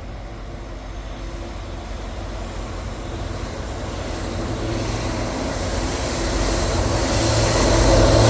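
Approaching freight train's diesel locomotives, a low engine rumble growing steadily louder as the train nears.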